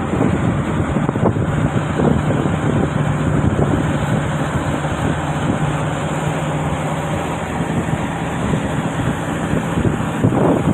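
Heavy diesel engine of a crawler piling rig running steadily with a low hum, with wind buffeting the microphone and a few faint knocks.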